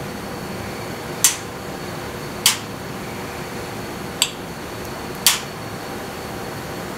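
Four sharp clicks at uneven intervals as the metal parts of a Ferrari 308 gearshift mechanism are handled and fitted together, over a steady background hum.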